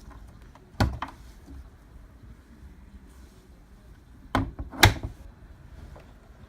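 LG Tromm WD-CR101C drum washing machine at the start of its quick wash cycle, running with a low steady hum. Two pairs of sharp knocks come about a second in and about four and a half seconds in.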